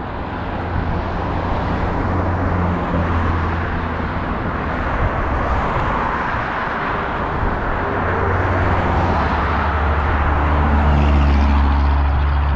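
An engine running steadily, a low hum under a broad rushing noise, as from a vehicle on the move; it grows a little louder over the last few seconds.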